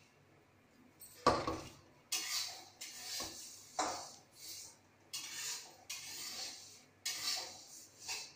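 Hand mixing powdered gulab jamun mix in a stainless steel plate: irregular scraping and rubbing strokes of fingers and powder against the metal, starting about a second in.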